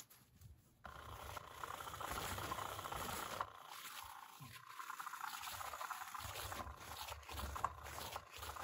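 Faint steady hiss of room noise with scattered light scrapes and taps, starting with a few sharp clicks in the first second.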